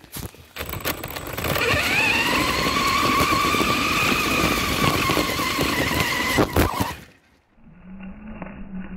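RC car motor whining as the car speeds along, rising in pitch and then holding steady, over rough tyre noise on the dirt. It cuts off abruptly about seven seconds in, leaving a low steady hum.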